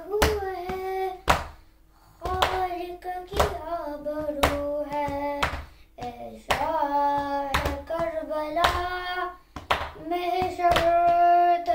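A noha, a Shia lament, sung by one reciter in long held lines, with matam: open hands striking the chest in a steady beat about once a second.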